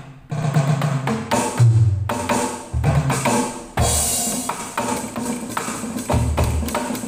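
Yamaha DTX562 electronic drum kit played with sticks on a percussion-style kit voice, heard through a Roland bass amplifier: a quick pattern of hand-percussion hits over low pitched drum notes, with a cymbal crash about four seconds in.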